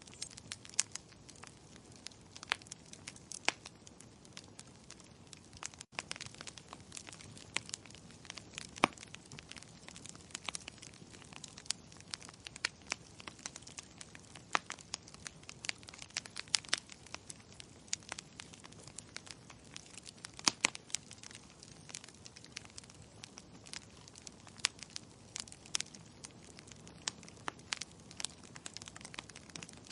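Wood fire crackling in a fireplace: frequent, irregular sharp pops and snaps over a soft steady hiss.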